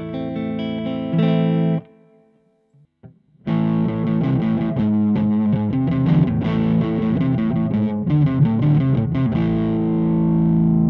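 Electric guitar played with distortion: sustained chords that cut off about two seconds in, a short silence, then a busy picked passage ending on a held chord near the end.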